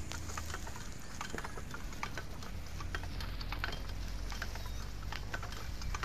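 Footsteps on grass: a quick, irregular run of soft thuds and clicks over a low, steady rumble of wind on the microphone.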